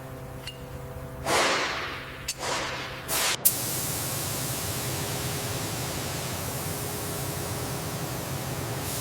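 A few short whooshing bursts, then a steady spraying hiss that starts about three and a half seconds in and holds.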